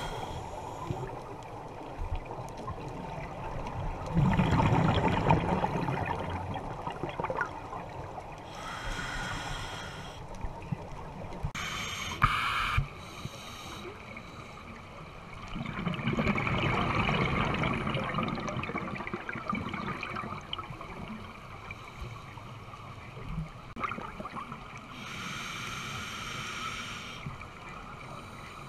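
Scuba breathing heard underwater through a regulator: a short hiss of inhaling, then a longer burst of bubbling exhaust as the diver breathes out, repeated slowly.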